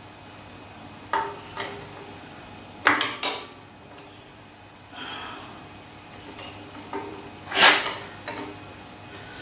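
Spanner clinking and knocking against the steel motor mounting bracket of a metal shaper as its bolts are worked: a handful of sharp metallic clinks, some in quick pairs, the loudest about three quarters of the way through.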